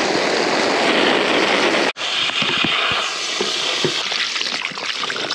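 A strong jet of water sprayed into a rat burrow, hissing steadily and splashing on wet soil, with a brief break about two seconds in.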